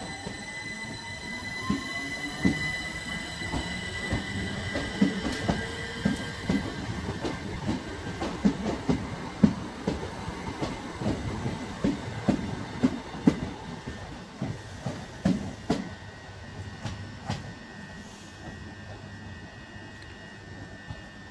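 Electric multiple-unit train running on the line. A rising whine in the first few seconds gives way to a long run of irregular clicks and knocks from the wheels over rail joints and pointwork, with a steady high ring above them, all thinning out near the end.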